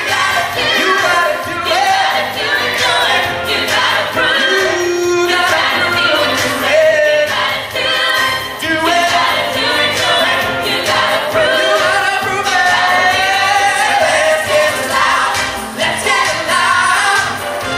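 Pop dance music with a group of voices singing, played over loudspeakers.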